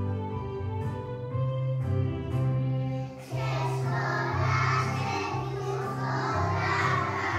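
A group of young children singing together over a recorded instrumental backing track. The backing plays alone at first, and the children's voices come in a little over three seconds in.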